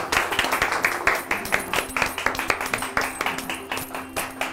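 A small group of people clapping their hands, a quick, uneven patter of many claps.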